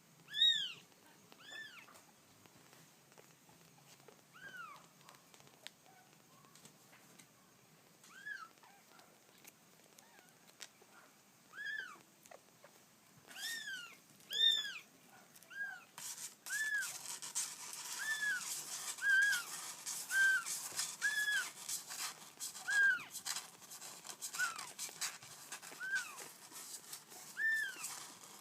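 Kitten meowing: short, high, arched cries, sparse at first and coming about once a second in the second half. A steady crackling hiss sets in about halfway through.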